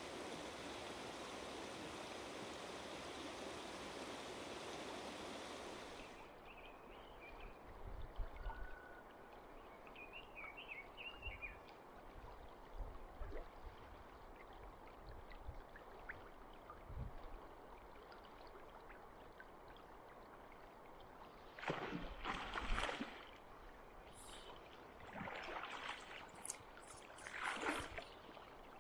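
River water running in a steady rush; about six seconds in it drops to a quieter flow, with a few faint bird chirps and several short splashy bursts near the end.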